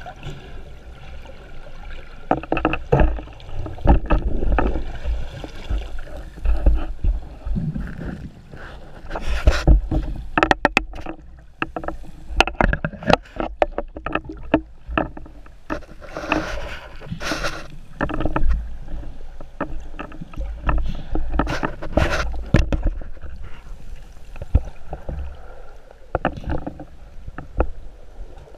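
Water sloshing around an action camera's waterproof housing, heard underwater and at the surface, with frequent knocks and clicks from handling.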